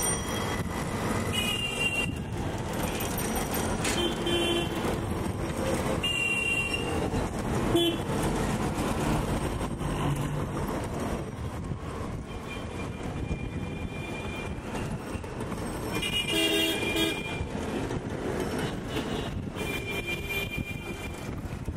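Busy city street traffic thick with cycle rickshaws, heard from a vehicle moving through it: a steady road rumble broken by frequent short, high-pitched horn toots, clustered near the start and again near the end.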